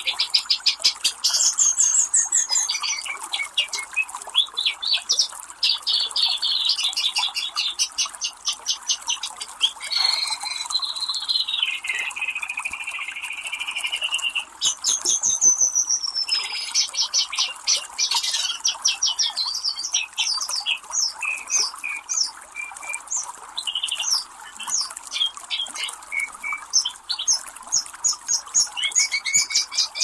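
Several birds calling over a steady rush of flowing creek water: fast chattering runs of repeated notes and trills, with a drawn-out whistle near the middle.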